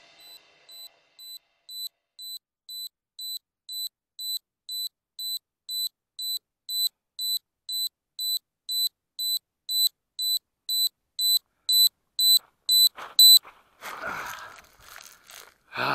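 Electronic beeper on a downed FPV flying wing: a lost-model buzzer sounding short, high beeps about twice a second, growing steadily louder. The beeps stop near the end and give way to knocks and scrapes of the plane being handled.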